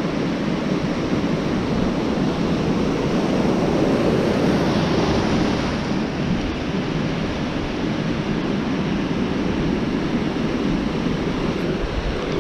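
Ocean surf washing in and out on a sandy beach, a steady rush that swells a little about four seconds in, with some wind on the microphone.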